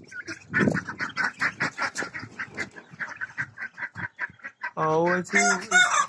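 Domestic chickens clucking, a quick stream of short calls.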